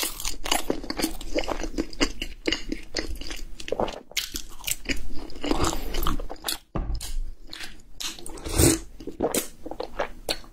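Close-miked chewing of a flaky pastry, with a dense run of small crisp crunches and crackles.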